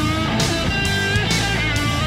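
Rock music: an electric guitar playing bent, sustained notes over a steady beat.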